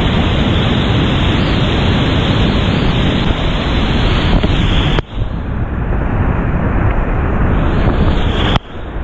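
Whitewater rapids rushing loudly around a kayak running them. The noise drops away abruptly twice, about five seconds in and near the end, then builds again.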